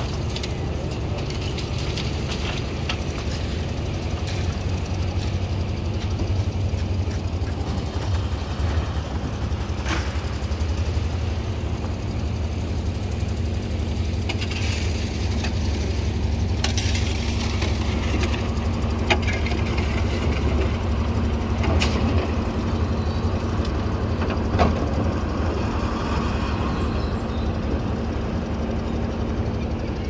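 An engine or machine running steadily, with a low rumble and a steady hum, and a few sharp clicks.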